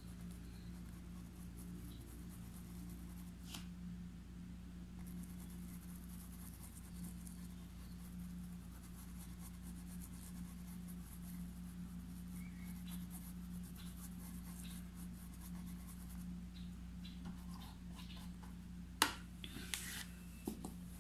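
A paintbrush stroking paint into cloth stretched in a wooden embroidery hoop: a faint, soft scratching of the bristles on the fabric over a steady low hum. Near the end comes one sharp click, then a few lighter taps.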